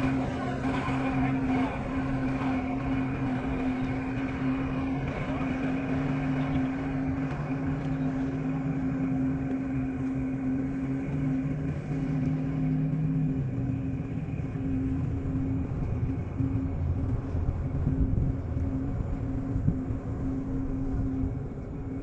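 An engine running steadily at low revs; its low tone drops deeper about two-thirds of the way through and comes back near the end.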